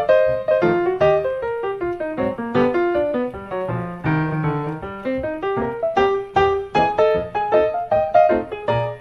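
Background piano music: a quick melody of separate struck notes over a lower bass line.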